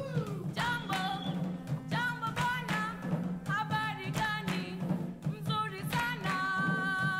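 Background music: a voice singing over a steady drum beat and a low held drone.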